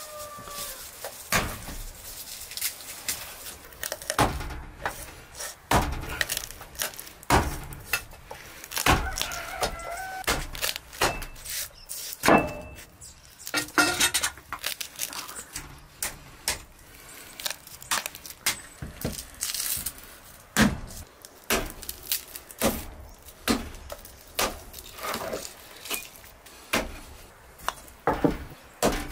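Garlic cloves being peeled and trimmed with a small knife on a wooden cutting board: irregular sharp taps and clicks of the blade and cloves against the board.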